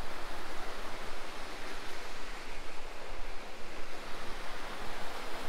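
Steady rush of water from a small mountain waterfall and creek cascading over rocks, an even hiss with no breaks.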